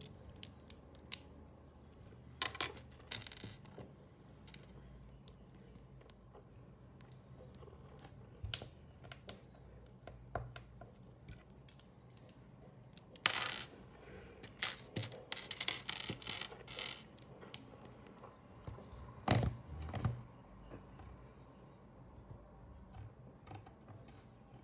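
Plastic LEGO bricks clicking and clattering on a glass tabletop as loose pieces are picked up and snapped together. The clicks come in short bursts: a few seconds in, a longer, louder cluster past the middle, and another shortly after.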